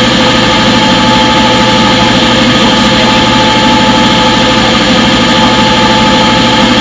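Front-load washing machine in its spin cycle, a loud steady whir made of several held tones over a hum, with no change in speed.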